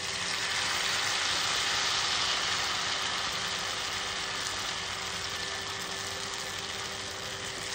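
Batter-coated prawn deep-frying in hot oil: a steady sizzling hiss of bubbling oil, loudest about two seconds in and easing a little after.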